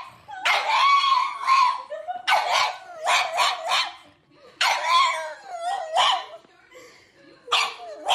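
Pug howling in wavering, pitched calls, about three bursts with short gaps between them, each a longer note that breaks into several quick short pulses.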